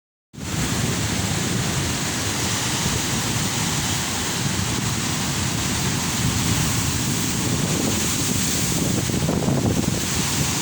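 Ocean surf washing and breaking in a steady roar, with wind buffeting the microphone.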